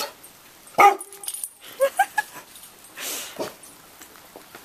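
Chocolate Labrador retriever barking: one loud bark about a second in, then a few shorter yips around two seconds. The dog is barking out of fear of unfamiliar roofing materials.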